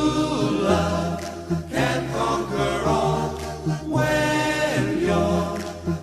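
Background music: a slow pop song, sung voices holding and gliding over the accompaniment.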